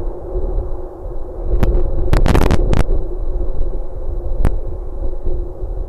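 Wind rumble and a steady electrical hum on an outdoor nest-box camera microphone. A quick cluster of sharp clicks or knocks comes about two seconds in, with single clicks just before it and again near the end.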